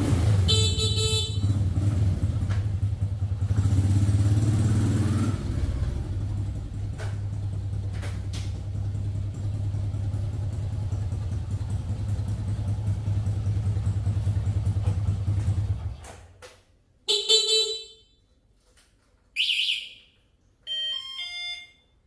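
Honda Dream's single-cylinder four-stroke petrol engine running steadily, revving briefly about four seconds in, then cutting off about sixteen seconds in. Short pitched beeps sound once near the start and three times after the engine stops.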